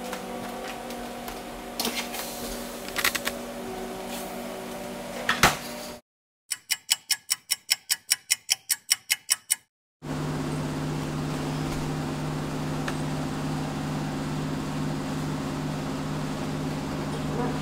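Steady hum of a running kitchen oven with a few clicks and knocks, the loudest about five seconds in. Partway through it drops out for a quick run of typewriter-style clicks, about four a second for three seconds, then a steady, lower oven hum returns.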